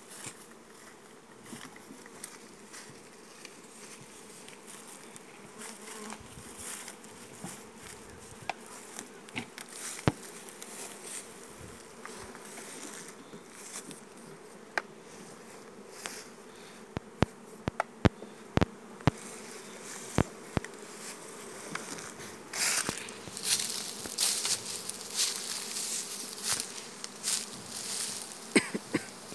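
Honeybees buzzing around an opened beehive in a steady hum. A run of sharp clicks comes about halfway through, and louder rustling and handling noise fills the last several seconds.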